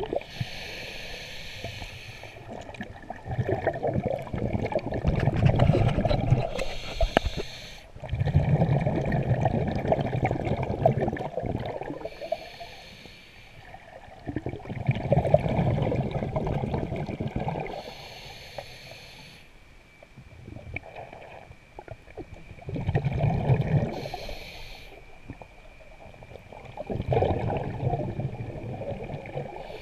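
Scuba diver breathing through a regulator underwater, in a regular cycle. A short hiss of each inhale through the regulator alternates with a longer rush of bubbling exhaust bubbles, about five breaths in all.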